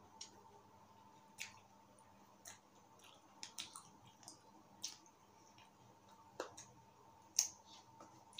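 Quiet eating sounds: short sharp clicks and smacks, about one a second, as a plastic spoon scoops soft-serve ice cream from a paper cup and is eaten from. A faint steady hum lies underneath.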